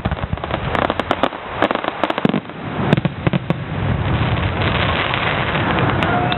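Fireworks going off in a rapid run of crackling pops and bangs. After about three and a half seconds the bangs thin out and a steady crowd noise rises.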